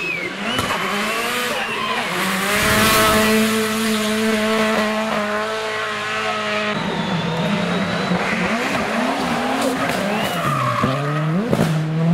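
Hill-climb competition cars driven hard uphill one after another, their engines revving high and dropping through gear changes, with tyre squeal.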